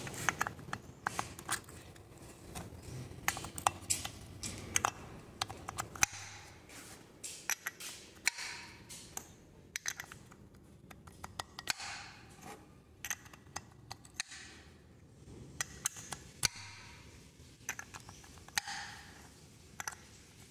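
Light metal clicks and clinks, irregular and sharp, as valve-train parts (valves, spring retainers and bucket tappets) are handled and fitted into a Volkswagen AP engine's aluminium cylinder head.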